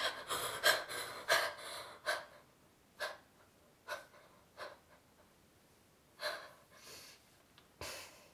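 A person's breathing in short gasps, a puff every second or so that grows fainter and further apart.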